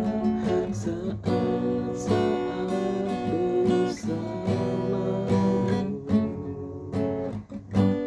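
Acoustic guitar strumming chords, with a new strum about every second and the chord shifting every few strums.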